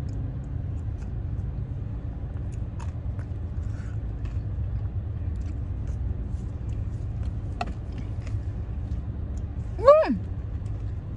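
Steady low rumble of a car cabin, with faint scattered clicks of eating with a spoon. Near the end comes one short pitched sound that falls sharply in pitch, the loudest moment.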